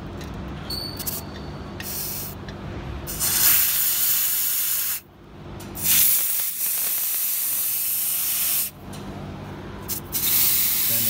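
Compressed air hissing out of a truck's secondary air brake tank through its pull-cable drain valve, in several loud spurts that cut off sharply about five and nine seconds in and start again each time. The tank is being drained to test the one-way check valve between the air tanks.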